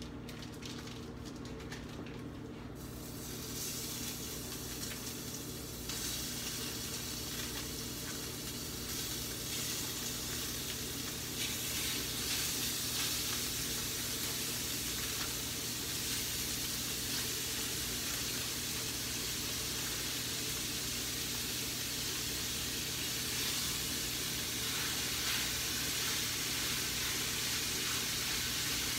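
Raw ground beef sizzling as it hits hot olive oil in a frying pan. The sizzle grows louder in steps over the first dozen seconds as more meat goes into the pan, then holds steady.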